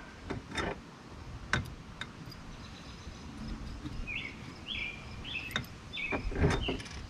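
Scattered light clicks and knocks of tools and metal parts being handled on an aluminium crossbar. A few seconds in, a bird chirps about five times in quick succession, each chirp a short falling note.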